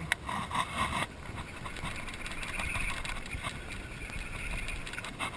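Baitcasting reel being cranked to retrieve line: a steady whirring with many small clicks, and a few sharper clicks in the first second.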